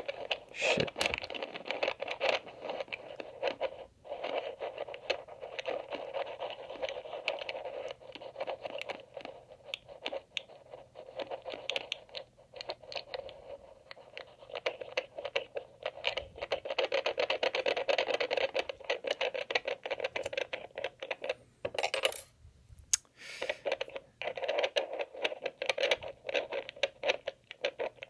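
Amplified metallic scratching and rapid ticking of a lock pick probing the magnetic rotors of an EVVA MCS lock held under a tension wrench, with a brief pause about three quarters of the way through.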